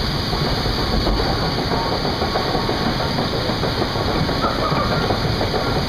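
River-rapids ride machinery running as the raft gets under way: a steady low mechanical rumble with a fine continuous clatter, of the kind made by the raft riding up the ride's conveyor lift.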